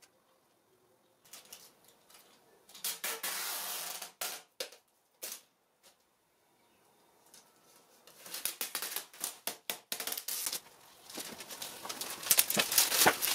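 Plastic cling film on a board being smoothed and pulled by hand, rustling and crinkling in irregular bursts, getting louder near the end as the film is peeled off.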